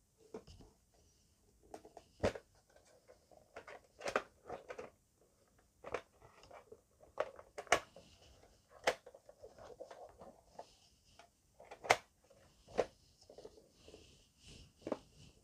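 Plastic VHS tape cases and a cassette being handled and opened by hand: irregular clicks and knocks, with softer rubbing of plastic between them.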